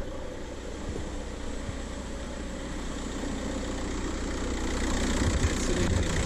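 VW 1.9 TDI four-cylinder turbodiesel idling steadily, just after a new EGR valve was fitted and the P0401 fault code cleared. It grows louder near the end.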